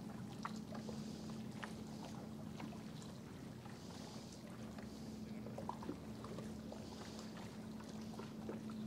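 Small waves lapping against a boat's hull in soft swells every second or two, with scattered light ticks and a steady low hum underneath.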